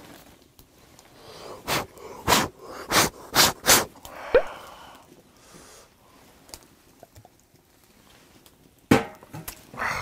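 A man blows five quick puffs of breath on a dropped shellfish, the 'three-second rule' clean-off, from about a second and a half in to just under four seconds. One sharp knock follows near the end.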